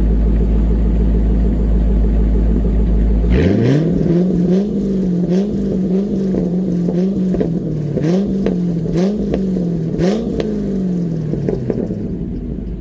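C5 Corvette Z06's LS6 V8 through an aftermarket exhaust: a deep rumble, then about three seconds in the revs sweep up sharply and stay high. The pitch dips and recovers quickly several times, with sharp cracks from the exhaust at the dips, before the revs fall away near the end.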